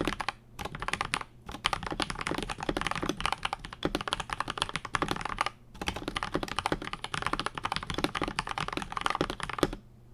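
Fast continuous typing on an Akko 5075S mechanical keyboard with lubed Gateron Milky Yellow linear switches on a polycarbonate plate: a dense run of keystrokes with brief pauses, stopping just before the end.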